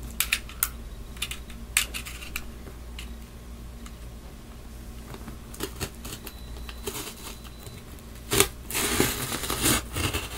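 Box cutter cutting into a taped cardboard parcel: scattered clicks and knocks, then about a second of continuous cutting and tearing noise near the end.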